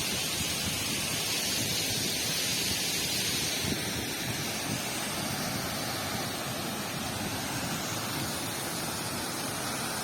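Steady rush of a waterfall, a continuous hiss of falling water that eases slightly about four seconds in.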